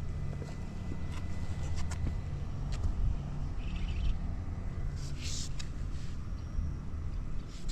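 Suzuki GS50 scooter's single-cylinder four-stroke engine idling steadily, with a few sharp clicks and short hisses over it. The engine is running quietly with no abnormal noise.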